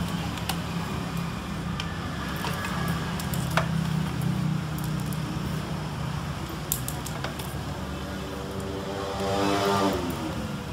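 Steady low hum with a few light clicks. Near the end a motor vehicle passes, its engine pitch falling as it goes by.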